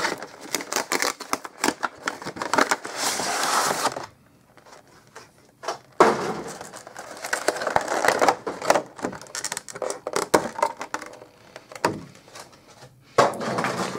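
Cardboard box and clear plastic blister tray of a Pokémon trading card box being opened and handled: rapid clicks, crackling and rustling of cardboard and plastic packaging, with a pause of about two seconds near the middle.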